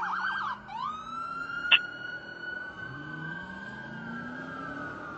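Fire truck siren switching from a fast yelp to a long wail that rises and then slowly sinks, with one short sharp blast about two seconds in and the truck's engine pulling up through its revs underneath.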